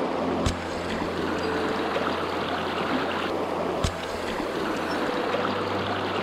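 River water rushing over riffles, a steady even rush with two sharp clicks, one about half a second in and one near four seconds.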